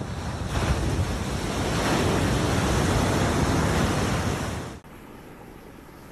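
Sea waves breaking and surging over a floating pier, a loud rushing surf with wind buffeting the microphone, which cuts off abruptly about five seconds in.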